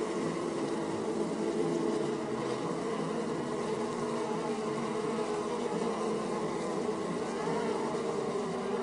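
Many honeybees buzzing together in a dense, steady hum from a colony.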